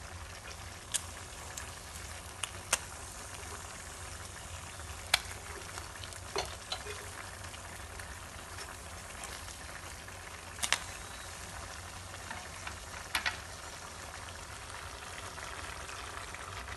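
Whole small fish sizzling steadily in oil in a frying pan, with a few sharp clicks and pops scattered through it.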